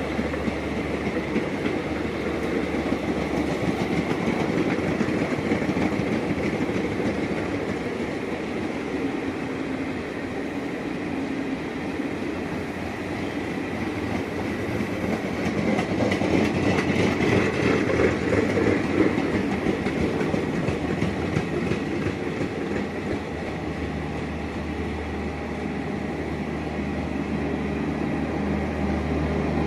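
Air-conditioned coaches of the Garib Rath Express passing at speed: a continuous rumble with the rapid clickety-clack of wheels over the rail joints, swelling a little past the middle. A low steady hum joins near the end.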